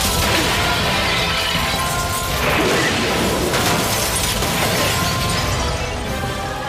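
Glass shattering and crashing, over background score music with steady held tones.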